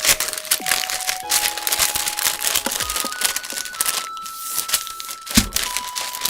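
Packaging crinkling and tearing in quick irregular crackles while food is handled for eating, over a slow background melody of held single notes, with one dull thump about five seconds in.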